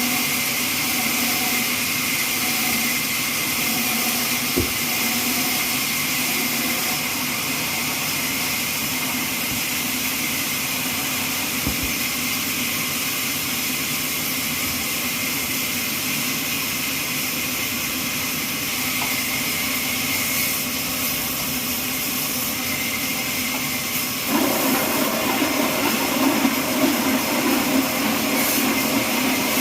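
Horizontal trolley bandsaw running steadily as it saws a neem log, a constant loud hiss-like whine. About 24 seconds in the sound grows louder and fuller.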